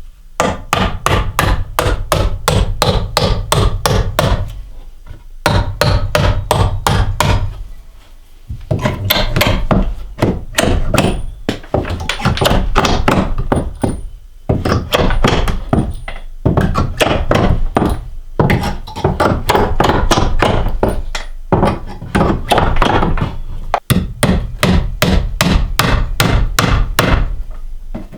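Hammer blows on wooden stair framing, about four a second, in several runs of a few seconds each with short pauses between.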